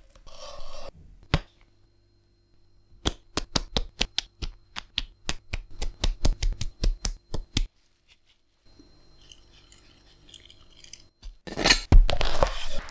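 Close-miked food-preparation sounds. First a brief wet rasp as charred skin is peeled off a roasted bell pepper with a knife. Then comes a long run of sharp clicks and taps, about four or five a second, and near the end a loud crackling crunch as a crusty tiger-bread bun is pressed down onto the sandwich.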